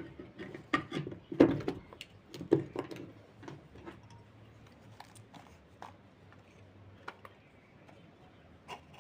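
Clicks and knocks of small fan motor parts and wiring being handled and fitted by hand, a cluster of sharper knocks in the first three seconds, then a few scattered light ticks.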